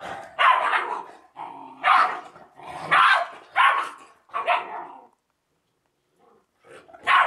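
Georgian shepherd dogs (Nagazi) barking during a play-fight between a puppy and its mother: about six loud barks in the first five seconds, a short lull, then barking again at the end.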